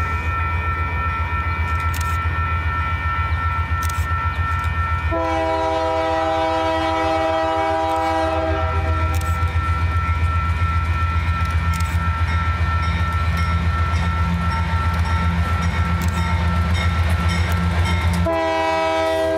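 Two GE AC4400CW diesel-electric locomotives pass close by with a throbbing engine rumble and a steady high whine. The horn sounds a long chord about five seconds in, lasting about three and a half seconds, and sounds again near the end.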